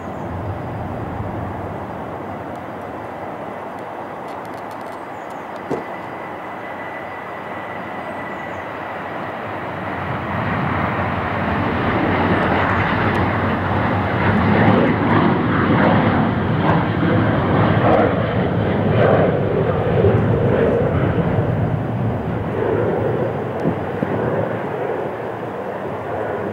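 Jet engines of a taxiing Boeing 747 freighter, a steady rumbling engine noise that grows louder about ten seconds in, stays loudest through the middle and eases off near the end.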